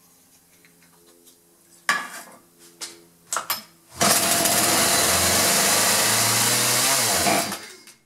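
A few short knocks, then a Poulan Pro 40cc chainsaw's two-stroke engine fires about four seconds in, runs loudly for about three seconds and dies away. It stalls for lack of fuel: the fuel lines are misrouted, with the return line hooked up where the supply line from the filter should be.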